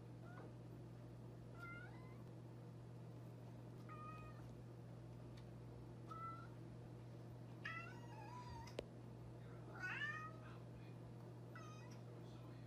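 Domestic cat giving short, quiet meows, about six in all, one every second or two, a few of them in quick little runs. A single sharp click sounds a little after the middle.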